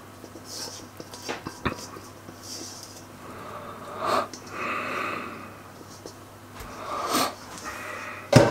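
Silicone spatula scraping frangipane out of a stainless steel bowl: a series of short, soft rasping strokes, then a sharp knock near the end.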